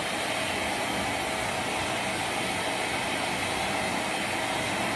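RevAir reverse-air hair dryer running, its wand drawing a child's curly hair up into the hose by suction. It makes a steady rush of air with a constant hum.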